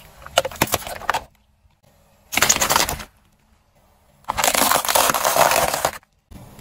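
A car tyre crushing objects on pavement: a run of sharp cracks and crackles in the first second as it rolls over plastic soda bottles, a short crunch about two and a half seconds in, and a longer crunching from about four seconds in as it flattens a row of paper cups.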